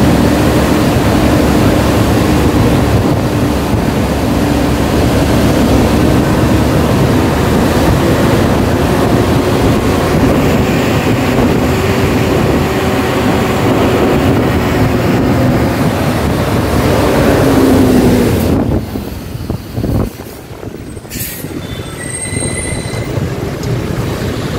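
Diesel bus engine running as the bus drives off ahead, a steady drone with a tone that slowly rises and falls over road noise. About eighteen seconds in the sound drops abruptly to a quieter engine-and-street background with a few faint thin high tones.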